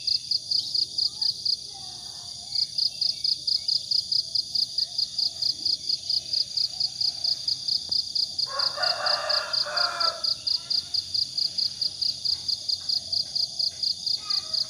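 Crickets chirping in a fast, even pulse that breaks off briefly about two seconds in. A rooster crows once, about eight and a half seconds in, with faint bird calls around it.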